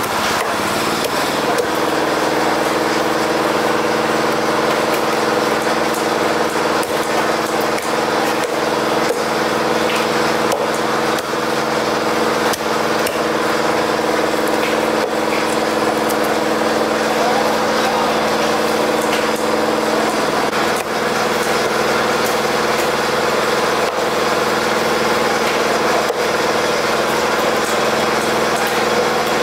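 A small engine running steadily close by, its hum shifting in pitch about two-thirds of the way through. Over it, a large knife knocks now and then on a wooden chopping block as fish is cut.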